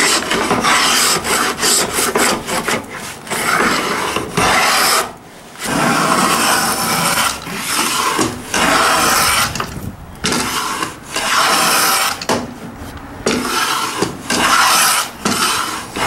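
Plow plane cutting a rebate along the edge of a hardwood board, each push stroke taking a long shaving. The strokes come short and quick at first, then longer with brief pauses between them.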